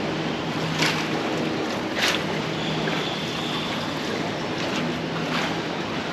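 Steady background rumble with a low hum through it, and three short faint clicks or taps.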